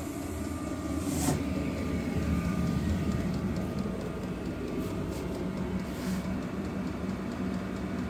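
Vevor diesel air heater running just after start-up, its blower fan on high with a steady hum, and a few sharp clicks from the fuel dosing pump.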